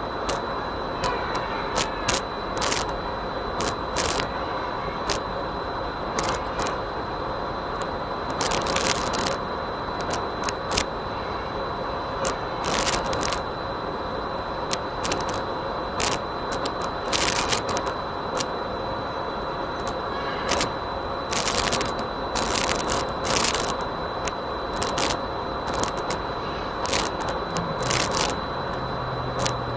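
Ambient noise picked up by FPV goggles' built-in microphone: a steady hiss with a constant high-pitched whine and frequent short, sharp crackles. A low hum comes in near the end.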